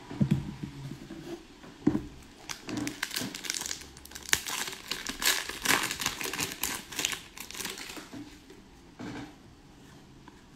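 Foil wrapper of an Upper Deck hockey card pack being torn open and crinkled by hand: a run of irregular crackles, after a few soft knocks near the start.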